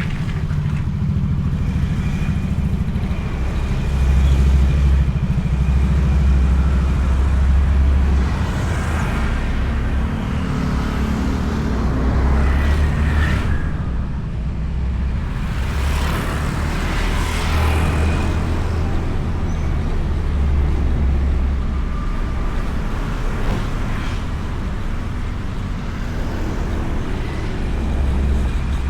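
Motorcycle riding in traffic, heard from a microphone inside the rider's helmet: a steady low rumble of engine and wind that swells and eases, with other road noise coming up around the middle.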